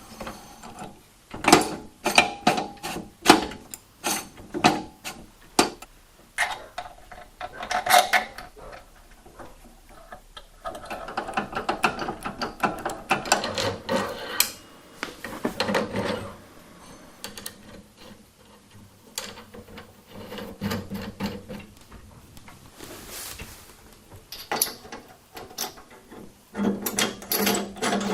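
Hand tools and metal go-kart parts being worked: irregular sharp clicks, knocks and clinks, with stretches of scraping and rattling in the middle and again near the end.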